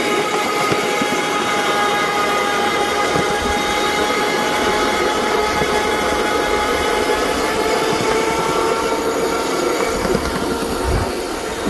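Ride-on miniature work train rolling along its track: wheels rumbling on the rails under a steady high-pitched whine that fades about ten seconds in.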